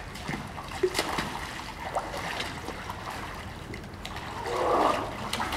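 Swimming-pool water splashing and sloshing as two kids wrestle in it, with a few sharp splashes and one louder burst just before the end.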